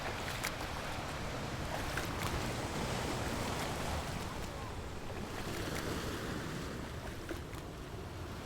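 Steady wind and water rush from a pontoon boat under way, with wind buffeting the microphone.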